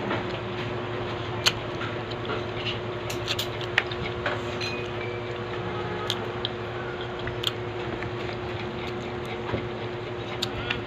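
Eating sounds: chewing with scattered sharp clicks, over a steady electric fan-like hum.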